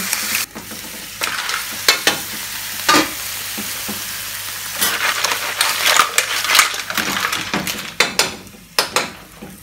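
Mussels, clams and langoustines sizzling in a hot frying pan as the shells open in the heat, with repeated sharp clacks of shells knocking together and against the pan as they are turned. The sizzle drops away near the end.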